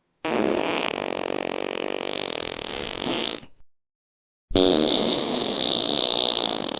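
Two long fart sound effects, each about three seconds of fast rattling flatulence, with a second of dead silence between them. The first sputters out near its end; the second starts abruptly.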